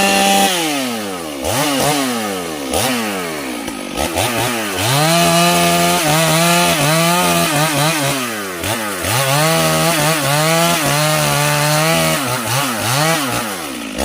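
Two-stroke chainsaw revved hard again and again, its pitch jumping up and falling back several times, then held at full throttle for two long stretches of a few seconds each with a dip between, as it cuts sengon (albizia) wood.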